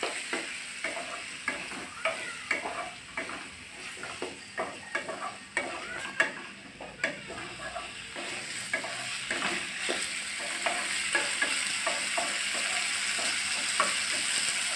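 Wooden spatula scraping and knocking in an aluminium kadai as chopped ivy gourd fries in oil with a steady sizzle. The stirring strokes come thick and fast over the first ten seconds or so, then ease off while the sizzle grows louder toward the end.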